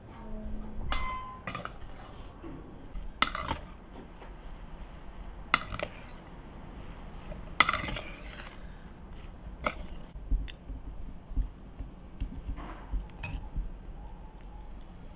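Metal spoon stirring a thick minced filling in a stainless-steel pan, with several sharp clinks as it strikes the pan's side, then softer handling knocks.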